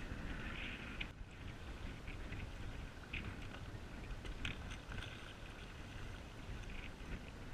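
Paddle strokes splashing and dripping in the water, irregular and soft, over a steady low wind rumble on the microphone.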